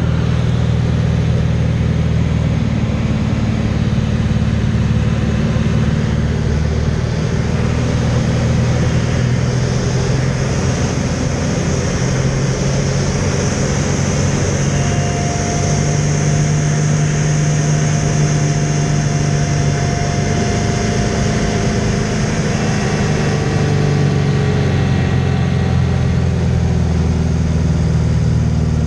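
Aerobatic biplane's piston engine and propeller running, heard from inside the cockpit, with rushing airflow over the canopy. The engine note shifts several times as the aircraft manoeuvres, and the wind rush is loudest through the middle.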